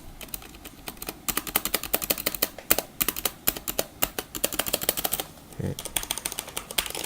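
Rapid typing on a Qisan Magicforce 68 mechanical keyboard with Cherry MX Brown switches: a quick, dense run of key clicks for about four seconds, a short pause, then a few softer keystrokes near the end.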